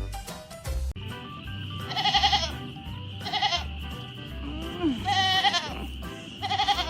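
An animal giving four short, wavering cries, each about half a second long, over background music with a steady beat.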